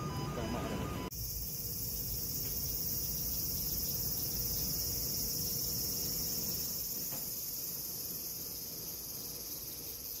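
A short electronic chime tune breaks off about a second in, giving way to a steady, high-pitched drone of insects with a faint hum and low rumble under it.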